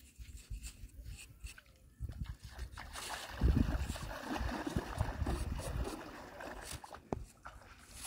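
Small metal blade scraping and carving packed damp sand, shaving it off so that crumbs and clumps fall away. A louder stretch of low noise runs through the middle, with a sharp click near the end.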